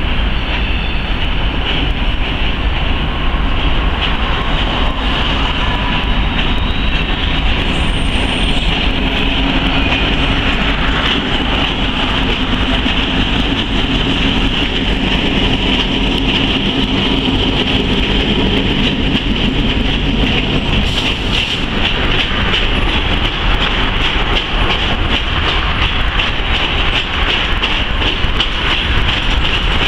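A cut of railway tank cars and covered hoppers rolling slowly past behind a yard switcher, a steady rumble with the wheels clicking over rail joints.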